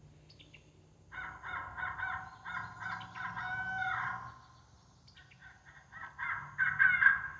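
Crow caws played from an electronic game caller: a quick run of harsh caws starting about a second in, a pause of about two seconds, then a second run that is loudest just before the end.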